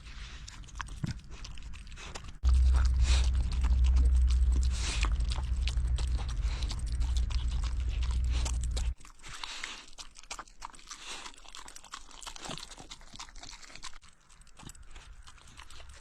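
A pet eating, with repeated crunching and chewing as it works through cured pork rib bits mixed with rice. A loud low rumble sounds from about two and a half seconds in and cuts off abruptly near nine seconds.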